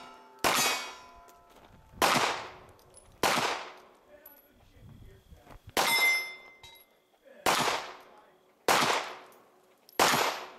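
Handgun fired at steel targets: seven shots at an unhurried pace, one to two and a half seconds apart. Several hits leave the steel plates ringing briefly.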